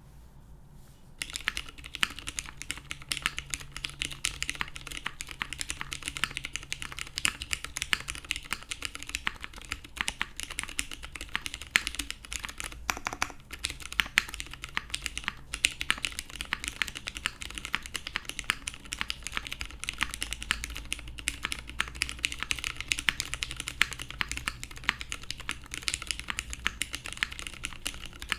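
Continuous fast typing on a gasket-mounted Finder Works Hyphen mechanical keyboard with lubed Cherry MX Brown Hyperglide tactile switches, an aluminum half plate and GMK keycaps, starting about a second in as a steady stream of key clacks.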